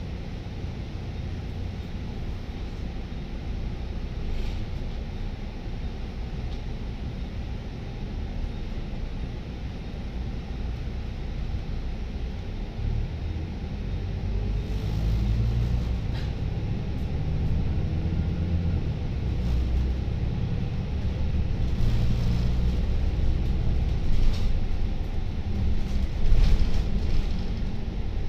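Volvo B9TL double-decker bus heard from the upper deck: the rear-mounted six-cylinder diesel and road noise make a low rumble. In the second half the engine note rises and falls and grows louder as the bus pulls away and picks up speed, with a few short rattles near the end.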